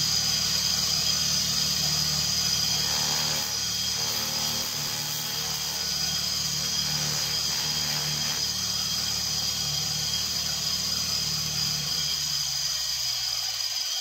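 A small DC motor running steadily, spinning a rewound washing-machine motor used as a generator, with a steady high-pitched whine over a low hum. The hum fades out near the end.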